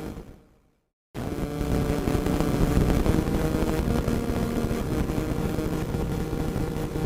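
Radio static: a steady hiss and crackle with faint steady tones beneath it. It fades out to silence within the first second and cuts back in abruptly about a second in.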